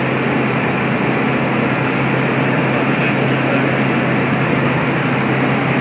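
Small plane's engine and propeller running steadily in flight, heard from inside the cabin: an even, loud drone with a constant low hum.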